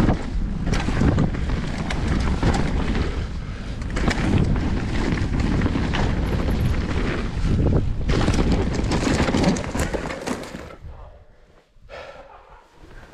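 Mountain bike riding fast down a dirt trail, heard from a camera on the rider or bike: wind buffeting the microphone and tyres rumbling over the dirt, with scattered knocks and rattles over bumps. The noise dies away about eleven seconds in as the bike slows.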